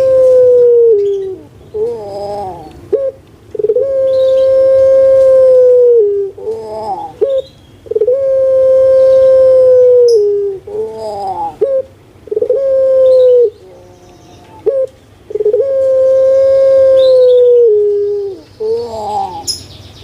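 Puter pelung, a domestic ringneck dove (Streptopelia risoria), cooing loudly over and over. It gives four long, steady coos of about two seconds each, and short rolling notes break in between them.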